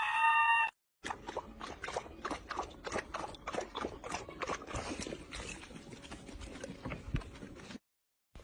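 A loud pitched cry that breaks off, then a long run of irregular clicks and knocks, several a second, that stops suddenly near the end.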